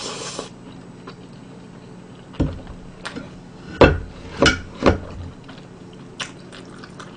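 Eating sounds close to the microphone: a run of sharp clicks and knocks of chopsticks against a dish, about five between two and five seconds in and one more near six seconds.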